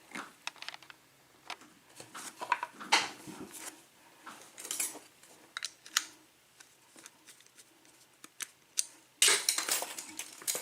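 Light metallic clicks and clinks of a Sesamee padlock and lock-picking tools being handled, scattered and irregular, with a denser cluster of clatter about nine seconds in.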